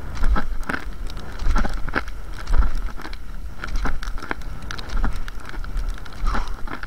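Cross-country skis sliding in classic tracks on snow, with the sharp clicks of ski poles planting about twice a second, unevenly spaced, over a low wind rumble on the body-worn microphone.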